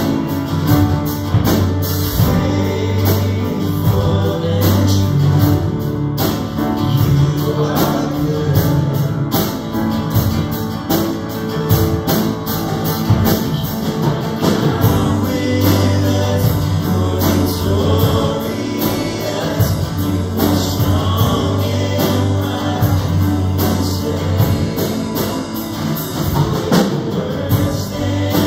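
Live worship band playing a song, with acoustic guitar, piano and drum kit keeping a steady cymbal beat, and voices singing over them.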